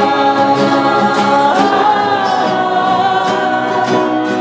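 Background music: voices singing long held, choir-like chords, with one voice gliding in pitch about halfway through.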